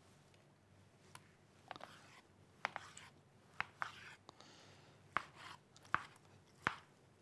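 Chef's knife chopping raw chicken breast on a cutting board: about nine sharp knocks of the blade hitting the board at an uneven pace.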